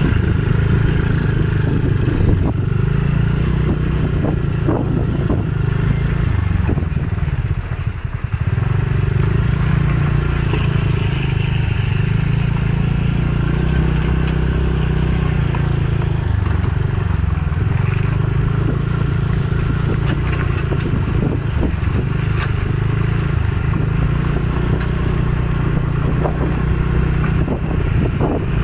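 Motor scooter running along a road while it is ridden, with wind rumbling on the microphone and some scattered rattles. The level dips briefly about eight seconds in.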